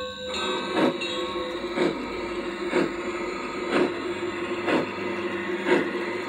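Large-scale model steam locomotive running along garden track: a steady hum with a sharp click about once a second as it rolls.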